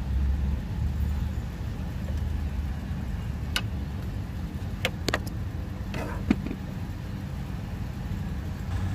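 2005 Nissan X-Trail engine idling steadily, with a few sharp clicks and knocks between about three and a half and six and a half seconds in as the power steering pressure switch's electrical connector is worked loose by hand.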